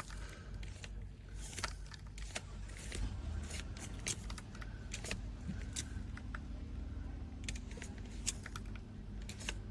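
Irregular light clicks and rattles of small hard objects being handled, over a low steady hum.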